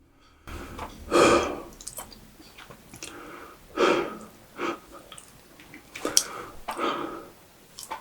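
Close-miked mouth sounds of eating: chewing and breathing, in a few short, loud, noisy bursts a couple of seconds apart, with small wet clicks between them.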